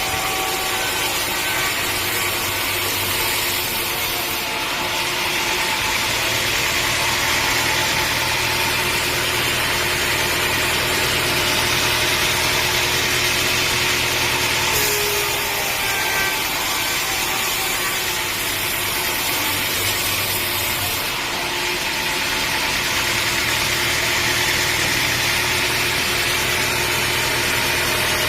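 Sawmill running: a steady engine hum under the dense hiss of a saw blade cutting through wood, the cutting noise changing in character every several seconds.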